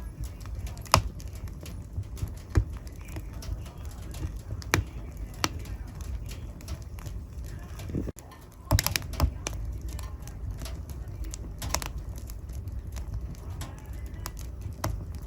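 Wood fire in a fireplace crackling and popping: irregular sharp snaps over a low steady rumble of burning. The sound breaks off briefly about eight seconds in, followed by a quick run of louder pops.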